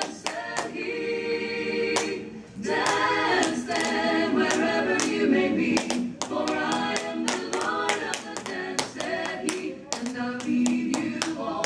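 A choir singing a hymn unaccompanied, over the clicks of tap shoes on a wooden dance floor. The taps come in quick runs at first, sparser through the middle, and quicken again near the end.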